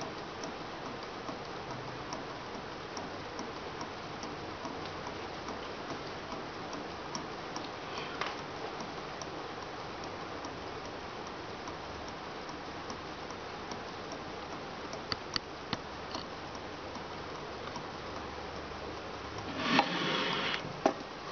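Ross yoke hot-water Stirling engine running, its linkage giving a light, steady ticking over a hiss. Near the end comes a brief louder rustle and clatter as the engine is lifted off the mug.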